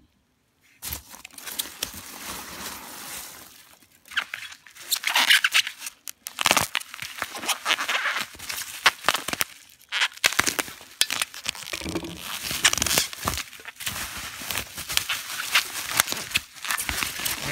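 Plastic bubble wrap crinkling and crackling, with foam packing peanuts rustling, as hands dig through a packed shipping box and unwrap a bottle. It starts about a second in and goes on in uneven spurts of sharp crackles.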